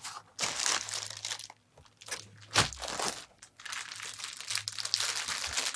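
Clear plastic packaging crinkling in irregular bursts as a wrapped component is handled and unwrapped, with one sharper crack about midway.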